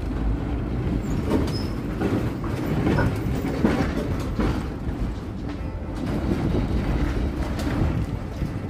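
An 1896 Brownell open wooden streetcar rolling along its rails: a steady low rumble from the wheels, with irregular clicks and knocks over the track.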